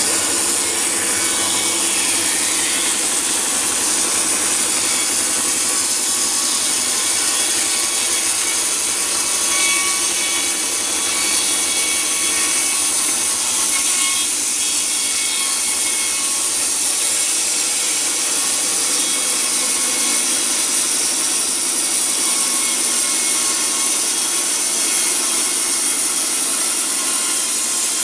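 Norwood LM29 portable band sawmill sawing through a log, a steady, unbroken cutting noise.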